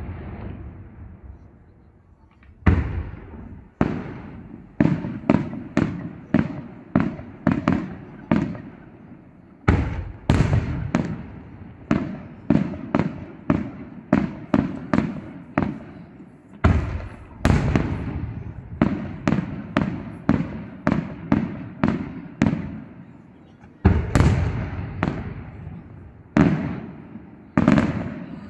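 Aerial firework shells bursting in a steady run of sharp bangs, about two a second, each followed by a fading echo.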